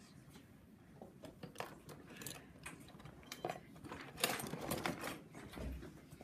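Clatter of wooden clay tools as a hand rummages through a plastic tub, loudest about four seconds in, among scattered small knocks and taps. A low thump near the end.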